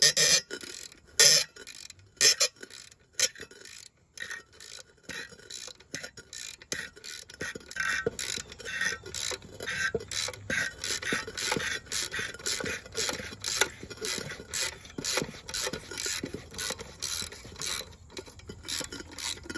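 Ratchet wrench backing a rusted nut off a seized exhaust-manifold stud, a few loud strokes near the start and then a steady run of ratchet clicks and grating from the rusty threads. It makes a terrible noise.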